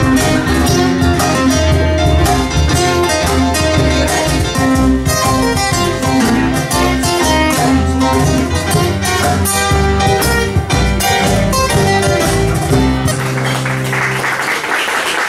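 Live small band playing with guitars to the fore, over upright double bass, cajón and keyboard. The bass and low end stop about two seconds before the end, leaving a noisy haze.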